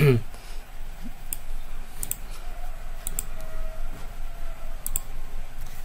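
Computer mouse clicking: a few scattered sharp clicks, some in quick pairs or threes, as components are selected and aligned in PCB design software.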